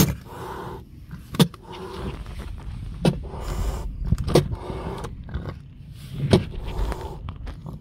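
Calico mother cat hissing defensively, with about four sharp spits breaking up the hisses.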